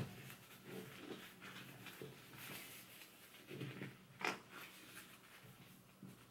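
Faint rustling and handling of a neoprene face mask as a soft filter pad is lined up inside it, with a sharp click right at the start and another short tap a little over four seconds in.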